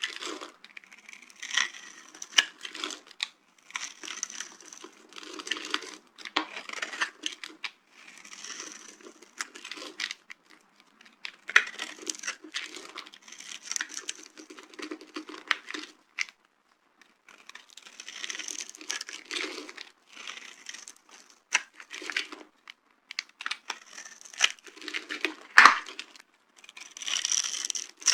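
Dry soap being crushed by hand: repeated crackling crunches with short pauses between them, and one sharp, loud snap near the end.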